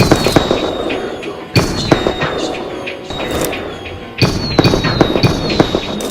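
A ringtone track of loud, crackling firework-like bangs and cracks over music, coming in sudden waves (at the start, about a second and a half in, and about four seconds in), each with short falling whistles.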